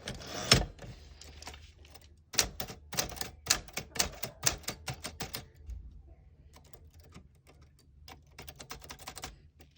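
Typewriter keys being struck: one loud clack about half a second in, then a quick run of keystrokes at about four a second for some three seconds, then fainter, scattered clicks.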